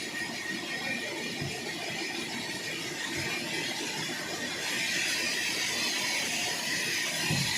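Sawmill saw cutting through a large log, the blade giving a steady high-pitched squeal that grows louder about five seconds in.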